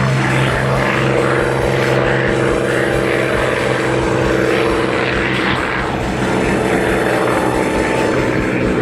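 Propeller aircraft engine droning as the plane flies over, a steady, loud tone over the rush of the airframe.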